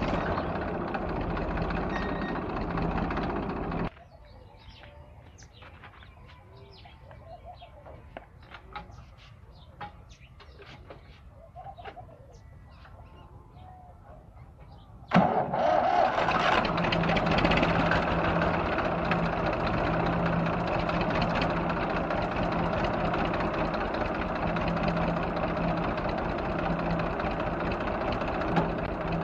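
Diesel tractor engine running under load with a loaded trailer behind it. It cuts out abruptly about 4 seconds in, leaving a quieter stretch with bird chirps, then starts again about halfway and runs steadily.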